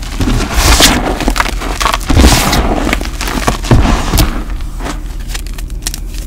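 Hands squeezing and crushing loose gym chalk powder and crumbled chalk, a crisp crunching in several squeezes that turns softer after about five seconds.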